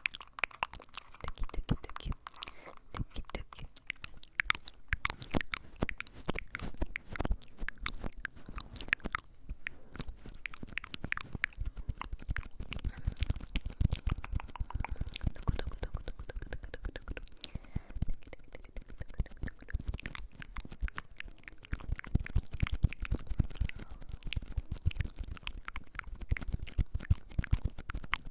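Close-miked ASMR trigger sounds: a dense, continuous run of crisp clicks and crunches, close to the microphone.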